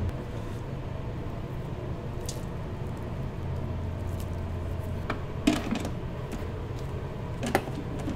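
Raw peeled shrimp being handled and dropped by gloved hands into a steel mixing bowl: soft wet squishing, with two sharp knocks about five and a half and seven and a half seconds in, over a steady low hum.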